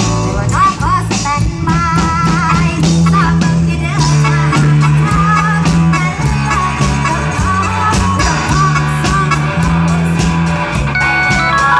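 Thai dance music for a ramwong: a singer's wavering melody over a stepping bass line and a steady drum beat.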